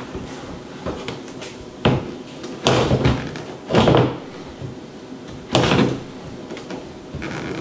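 Four heavy clunks of a cooktop being set down and shifted in a countertop cutout to test its fit.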